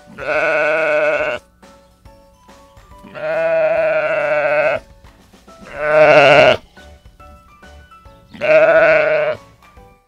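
Sheep bleating four times, each a long quavering call, about two to three seconds apart, over faint background music.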